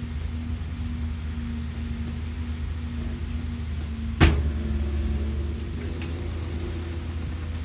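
Excavator's diesel engine running steadily, with one sharp knock a little past halfway; the engine is slightly louder for a second or so afterwards.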